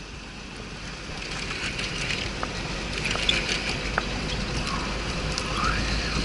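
A vehicle driving, with a steady low rumble and road noise and a few light clicks and rattles, growing a little louder over the first couple of seconds.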